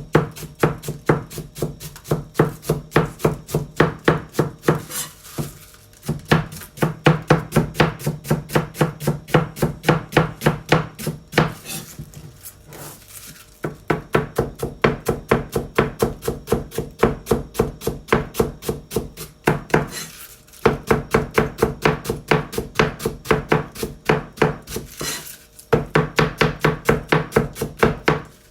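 Kitchen knife finely shredding cabbage on a cutting board: fast, even strokes, several a second, in long runs broken by a few brief pauses.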